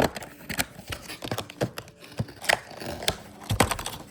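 Packaging of Penguin silent keyboard switches being opened and handled: a string of irregular sharp plastic clicks with scraping and rustling between them.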